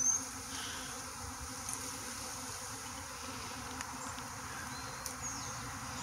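Honeybee swarm buzzing steadily, with many bees in the air around the cluster as it is disturbed during capture. A couple of short high chirps sound near the start and again about five seconds in.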